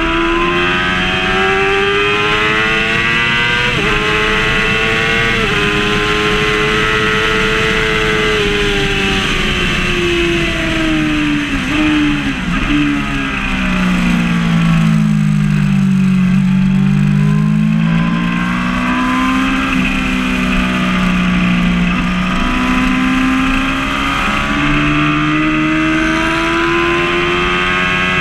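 Yamaha R6 5EB's 600 cc inline-four engine, heard from the bike itself, revving hard: the note climbs with two quick upshifts about four and five seconds in, falls away with downshifts to its lowest point around halfway, then climbs steadily again. Wind noise runs underneath.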